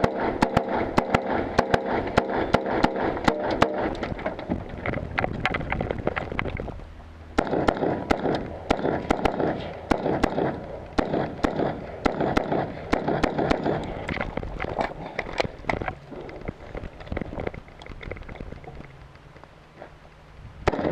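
Rifle shots fired one after another in quick strings, close together in the first few seconds and then more spread out and fainter toward the end.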